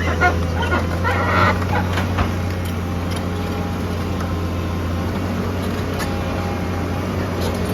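Heavy diesel engine running steadily with a low drone, with a few short knocks and rattles in the first two seconds.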